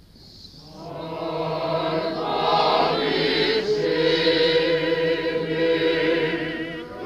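A choir singing liturgical chant, many voices holding long notes with vibrato. It swells in over the first two seconds.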